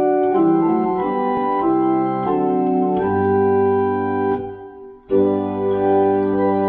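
Organ playing a hymn tune in sustained chords, with a low bass line entering about three seconds in. The sound drops away briefly about five seconds in as the introduction ends, then the full chord comes back in for the first verse.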